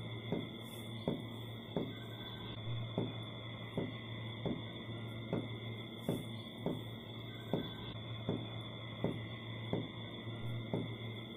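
Ambient drone of steady, ringing high tones over a low hum, with a sharp tick repeating evenly about every 0.7 seconds.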